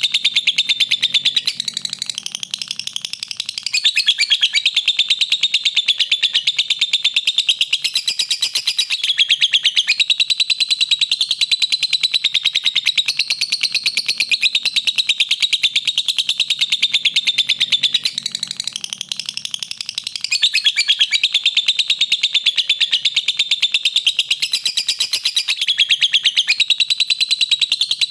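Lovebird singing a long, unbroken stream of very rapid, high-pitched chirps, easing off briefly twice.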